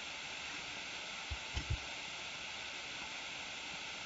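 Steady hiss of microphone background noise, with three faint, short low taps about a second and a half in.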